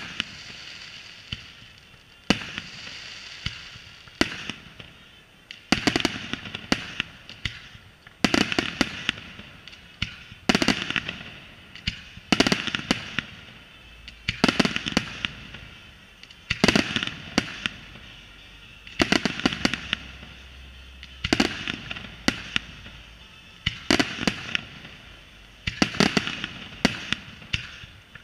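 Aerial firework display: a few single bangs over a high crackling hiss, then about six seconds in, clusters of sharp shell bursts about every two seconds, with the crackle continuing between them.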